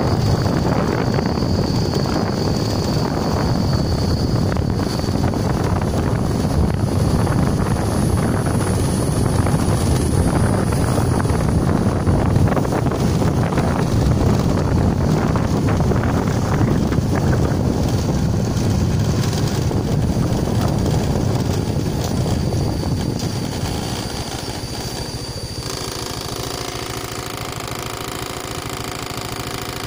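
Wind rushing over the microphone with a vehicle's engine running underneath, on a ride along a paved road. About four seconds before the end the rush eases and several steady tones sound together.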